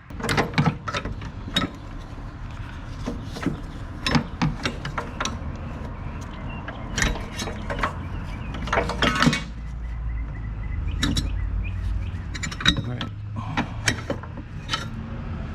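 Hand tools working on car AC plumbing: a ratchet wrench and metal tools clinking as 10 mm bolts are taken out, heard as many irregular clicks and knocks.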